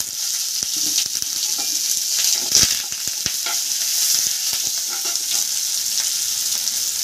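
Chopped onions sizzling in hot oil in a non-stick kadai, stirred with a perforated steel spatula that scrapes and taps against the pan again and again, loudest about two and a half seconds in.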